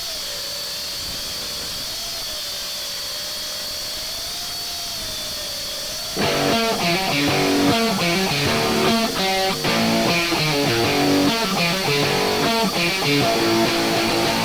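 FPV racing quadcopter motors whining, their pitch wavering up and down. About six seconds in, rock music with electric guitar starts and drowns them out.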